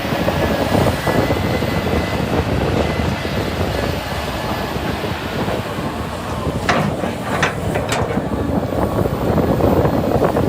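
Heavy excavator running at work with a steady diesel rumble, and a short run of sharp metallic clanks about seven seconds in.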